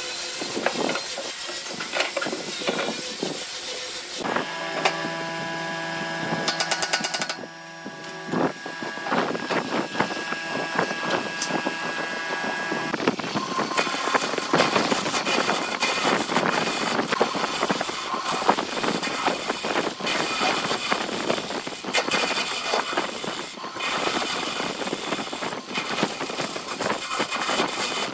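BURT wood lathe spinning a glued-up segmented wood blank while a hand-held gouge cuts into it: a steady, rough cutting noise. Earlier, a steady motor hum lasts a few seconds.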